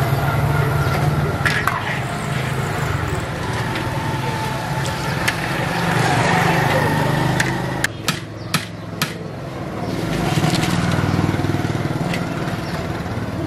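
Pakoras sizzling in a large wok of hot oil, with a few sharp metallic clinks of a steel slotted ladle against the pan about eight to nine seconds in, over a steady engine hum.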